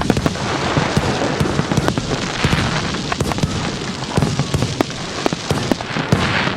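Fireworks going off: a dense, irregular run of bangs and pops over continuous crackling, with the crackle swelling a couple of times.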